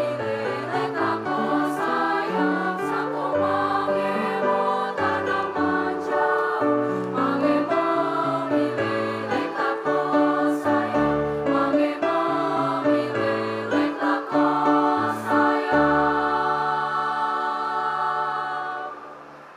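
Mixed junior-high school choir singing in harmony, closing on a long held final chord that fades out near the end.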